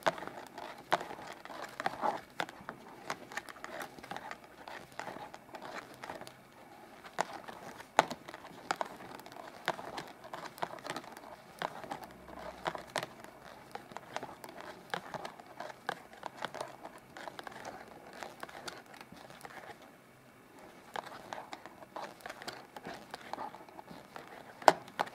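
Knitting needles clicking and yarn rustling as a row of knit stitches is worked: a quick, irregular run of small faint clicks, easing off briefly about twenty seconds in, with two sharper clicks near the end.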